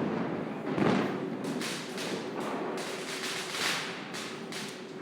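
Diwali firecrackers going off: a heavy boom about a second in, then several hissing, crackling bursts over the next few seconds.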